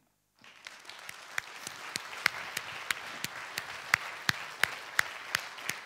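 Audience applauding, starting about half a second in and building, with one set of claps near the microphone standing out about three times a second.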